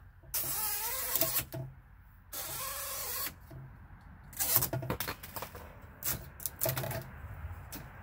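Aluminium window screen and its frame being worked by hand: two scraping, rasping noises about a second each, then a run of light metallic clatter and knocks as the frames shift against each other.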